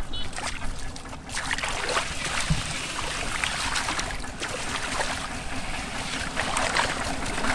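Water splashing and sloshing in shallow swamp water, in quick irregular splashes that start about a second in.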